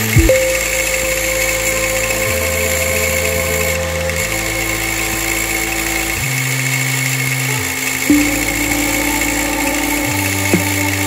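Background music of sustained synthesizer chords that change every couple of seconds, with a steady high hum underneath.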